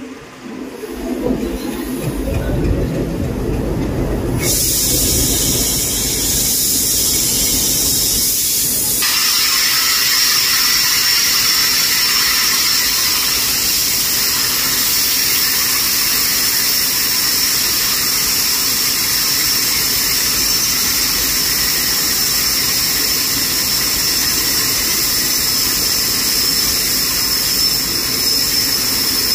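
Compressed air hissing loudly from the air brake connection between a diesel locomotive and a coach, with a steady high whistle. It starts suddenly about four seconds in over a low engine rumble and grows fuller about nine seconds in, as the brake hoses are coupled and air flows through.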